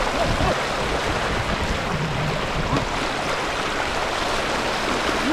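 Steady rush of fast-flowing shallow floodwater, splashing white around a wader's legs.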